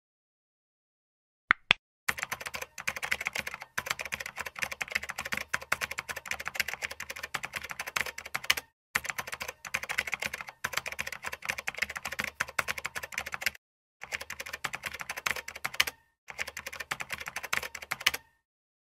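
Fast typing on a keyboard: a couple of clicks, then long runs of rapid clicking broken by short silent pauses.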